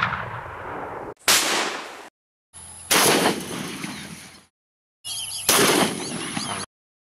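Shotgun blasts heard in short, abruptly cut clips: about four shots, each ringing away and then cut off, with brief dead-silent gaps between them. High whistling calls of a flying duck flock come in around the last shot.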